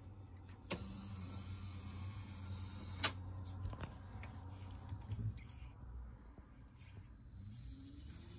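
Fleischmann model railway turntable driven by a replacement Faulhaber motor, its bridge rotating with a quiet, low hum: the smooth, much quieter running of the new motor. Two sharp clicks break in, the louder about three seconds in, and the hum rises in pitch near the end.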